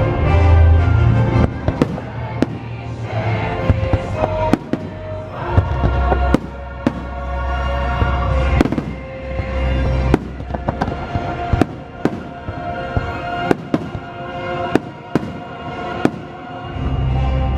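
Fireworks going off in many sharp, irregular bangs over loud show music with a heavy bass.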